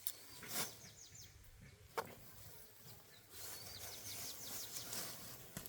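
Small birds chirping: short, high, falling chirps, a brief run about a second in and a faster steady series from about halfway on. A single sharp click about two seconds in.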